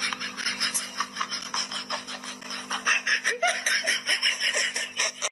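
A person laughing hard in quick repeated bursts, with a steady hum underneath.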